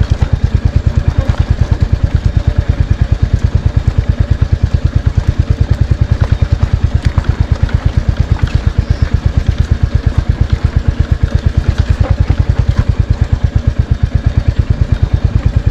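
Royal Enfield Hunter 350's single-cylinder engine thumping steadily at low revs, about ten even beats a second, while the motorcycle is ridden off-road. A few faint knocks sound over it.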